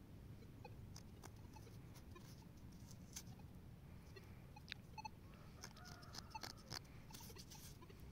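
Near silence: faint outdoor room tone with a low rumble and scattered soft clicks and rustles, a few clustered around the middle and near the end.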